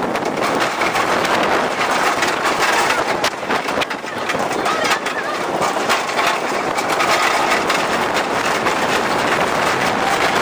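Arrow Dynamics suspended roller coaster train running at speed along its track: a steady rush of wind on the microphone with the cars rattling and clattering on the rails.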